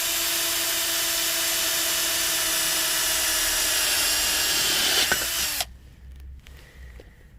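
Power drill with a tile bit boring a hole through a flower pot, its motor running at a steady pitch, then cutting off about five and a half seconds in.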